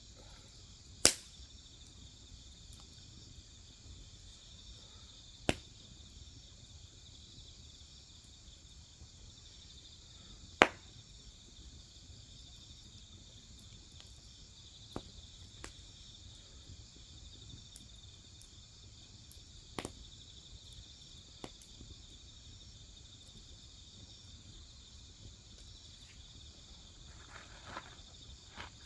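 Burning firewood cracking and popping in sharp single snaps, three loud ones in the first ten seconds and fainter ones after. Beneath them is the steady high chirring of crickets and other grass insects.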